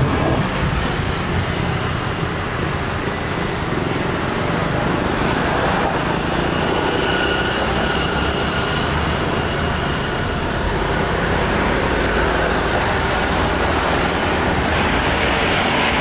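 Jet airliner engines running as an Airbus A320 rolls along the runway: a loud, steady rush with a faint high whine in the middle.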